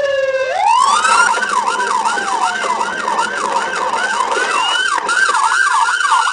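Police car siren: a slow falling wail ends about half a second in, and the siren switches to a fast yelp, rising and falling about two to three times a second.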